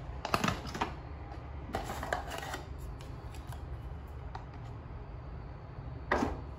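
Hands handling a small vinyl figure and a printed card: three short bursts of rustling and light clicking, the last one near the end, over a steady low background hum.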